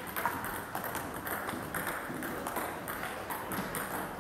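Table tennis rally: the celluloid ball clicking off paddles and table in an irregular back-and-forth.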